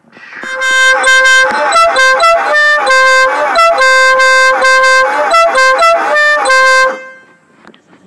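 Multi-trumpet musical air horn playing its tune: a quick run of loud pitched notes, switching from note to note several times a second. It swells in over the first half second and stops about a second before the end.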